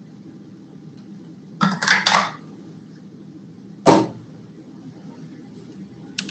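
A man drinking from a water bottle: a cluster of noisy gulping sounds about two seconds in, then one short sharp sound just before four seconds, over a steady low hum.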